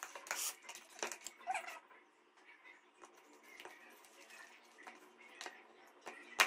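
Faint, scattered clicks and wet squelches of raw chicken pieces being pressed and turned in a spice-and-oil marinade in a plastic bowl, with a spoon tapping the bowl. A couple of brief faint squeaks come in the first two seconds.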